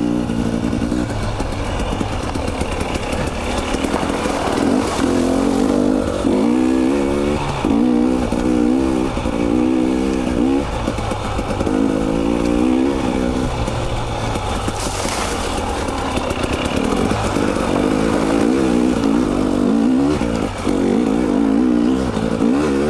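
Two-stroke dirt bike engine of a 2020 KTM 300 XC being ridden, its pitch rising and falling again and again with the throttle.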